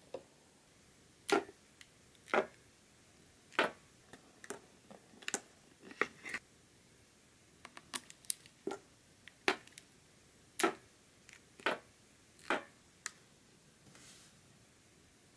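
Thin clear plastic chocolate mold crackling and popping as it is pressed and flexed to release the moulded chocolate pieces: about a dozen sharp clicks at uneven intervals.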